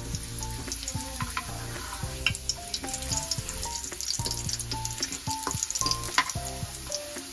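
Hot oil sizzling and crackling in a frying pan as thin wafers fry in it, a dense spatter of fine crackles throughout, over background music.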